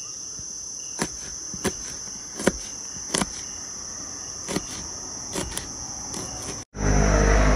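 Kitchen knife slicing chilies on a plastic cutting board: sharp, uneven taps of the blade on the board, about one a second, over a steady high-pitched chorus of night insects. Near the end the sound cuts out for an instant and gives way to a louder, rushing noise.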